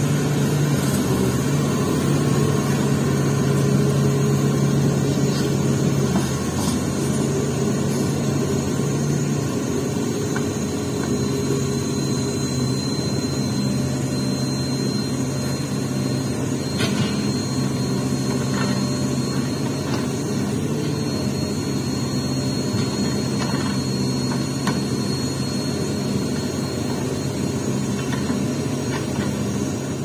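Diesel engine of a hydraulic crawler excavator running steadily as it carries and swings a log, a constant low hum that eases slightly about six seconds in, with a few faint knocks.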